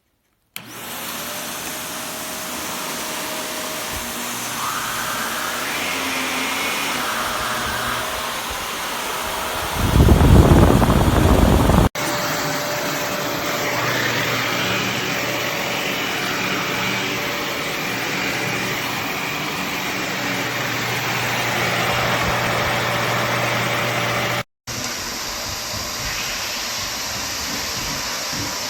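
Upright vacuum cleaner running on carpet with a steady whooshing drone and a faint steady whine. A louder low rumble lasts about two seconds near the middle, and the sound cuts off briefly twice.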